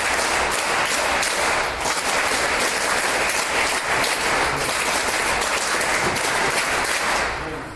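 A group of students applauding, steady clapping that dies away near the end.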